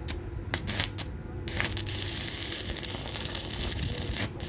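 Stick-welding arc from a 200 A IGBT inverter welder: a few sharp clicks as the electrode is struck on the steel, then the arc catches about a second and a half in and crackles steadily, dropping out briefly near the end.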